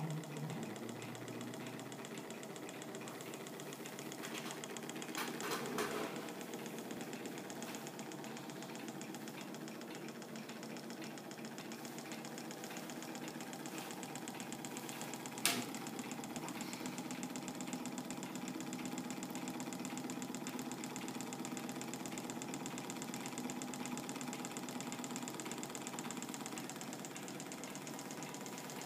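Small model Stirling engine of the Manfred design, fired by a methylated-spirit burner, running at a steady fast pace with a rapid even clatter from its piston, displacer and crank. A brief rustle comes about five seconds in and a single sharp click about halfway through.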